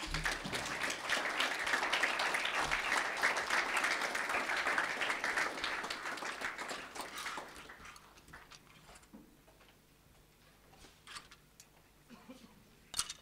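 Audience clapping, a dense patter of applause that dies away about two thirds of the way through. After it, only a few faint clicks, with one sharper click near the end.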